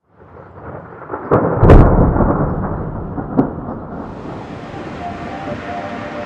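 Thunder: a low rumble builds, then a sharp crack about a second and a half in that rolls on and slowly fades, and a second, smaller crack a little after three seconds. A steady hiss of rain follows.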